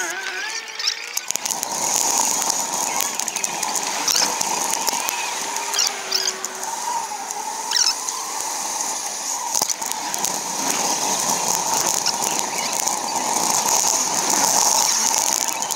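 Sped-up recording of a bicycle ride: wind and road noise run together into a steady hiss, dotted with short high squeaks and chirps.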